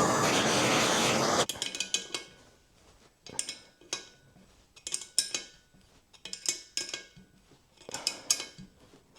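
A loud hiss for the first second and a half. Then repeated groups of metallic clicks, about one group every second and a half, as a wrench turns the nut of a threaded-rod puller drawing a seized rocker spindle out of a motorcycle cylinder head.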